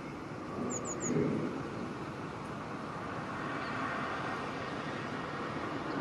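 Steady distant traffic rumble, with three quick, thin, high bird notes about a second in.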